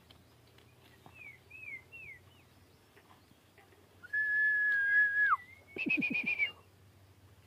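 Whistling: a few faint short chirping notes, then about four seconds in one long steady whistled note that drops away at its end, followed by a quick warbling trill.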